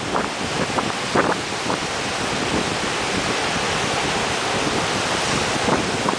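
Ocean surf washing and breaking, a steady rush, with wind buffeting the microphone.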